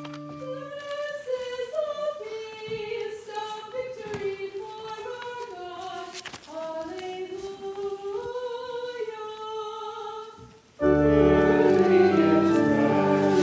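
A hymn being sung: a soft, thin melody at first with no accompaniment, then about eleven seconds in loud instrumental accompaniment and fuller singing come in together.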